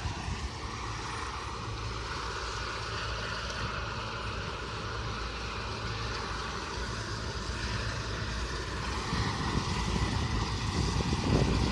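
Combine harvester running as it cuts oilseed rape, a steady machine drone that gets louder in the last few seconds.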